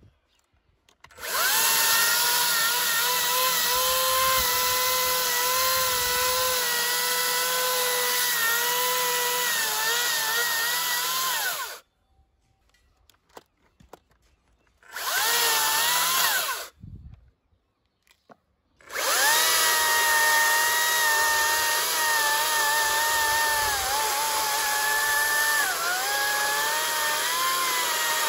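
Makita DUC405Z 36 V cordless chainsaw cutting into a tree stump: a steady electric whine, its pitch dipping briefly as the chain bites into the wood. It runs for about ten seconds, stops, gives a short burst, stops again, then runs on from past the middle.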